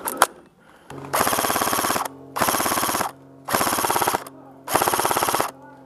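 Airsoft M4 electric gun firing on full auto in four short bursts of rapid shots, each under a second long and about a second apart, with a fifth burst starting at the end. A steady motor-and-gearbox buzz runs under the cracks.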